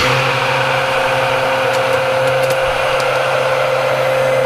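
Aicok five-speed stick blender switched on at its lowest speed, its motor running with a steady whine as it churns heavy whipping cream in a tall beaker.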